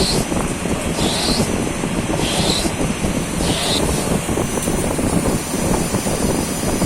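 CNC lathe running through a turning cycle, a steady mechanical rumble. A short high chirp repeats about once a second, then stops about four seconds in.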